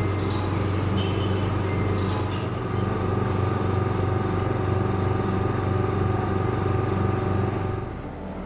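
Vacuum pump of a vacuum leak tester running with a steady hum, drawing vacuum in the test chamber at the start of a leak test. It gets quieter near the end.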